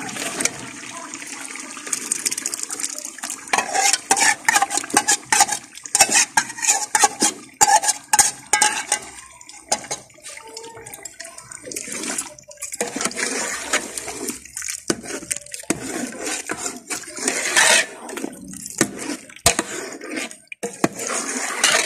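Metal ladle stirring and scraping against a large metal pot of chicken korma, with repeated clinks and scrapes over a steady sizzle and wet sloshing as yogurt and korma masala are mixed into the hot chicken.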